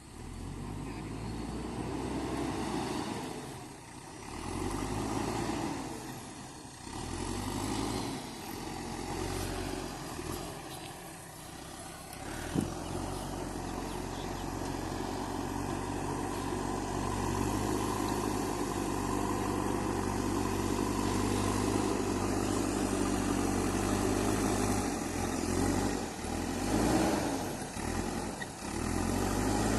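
Diesel engine of a JCB 3DX backhoe loader working, its revs and load rising and falling several times in the first half, then running steadier and a little louder. A single sharp knock about twelve seconds in.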